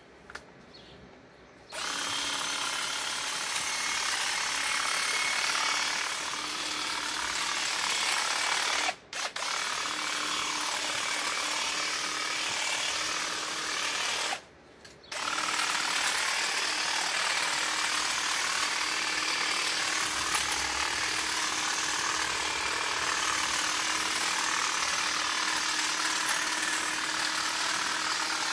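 Einhell GE-CH 1846 Li 18-volt cordless hedge trimmer running with a steady buzz, its reciprocating blades cutting through conifer hedge branches. It starts about two seconds in and cuts out briefly twice, about nine and fifteen seconds in.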